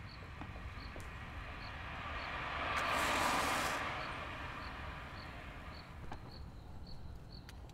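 Crickets chirping in a slow, even rhythm over a low steady rumble. A car passes by, growing louder to a peak about three seconds in and then fading away.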